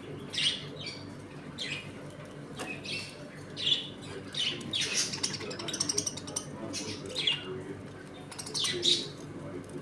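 A colony of budgerigars chirping and chattering: short, high calls every half second to second, a few louder squawks among them, over a steady low hum.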